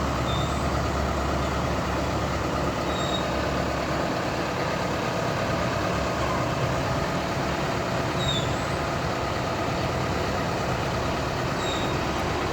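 Combine harvester engine running steadily. Its lowest note changes about four seconds in.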